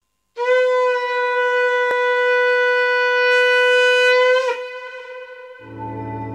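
Conch shell (shankha) blown in one long steady note of about four seconds that bends slightly down as it ends, the ritual call that opens an auspicious Hindu gathering. Near the end, instrumental music with a low drone begins.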